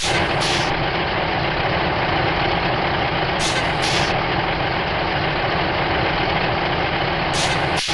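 A heavy vehicle's engine running with road noise: a loud, steady, dense roar with no break.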